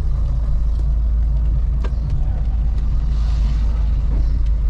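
A car driving: a steady low rumble of engine and road noise, with a few faint clicks over it.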